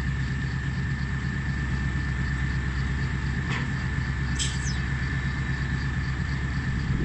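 Diesel engines of a Komatsu excavator and an Isuzu Deca dump truck running steadily, with a steady high whine over the low engine drone. A short falling chirp sounds about four and a half seconds in.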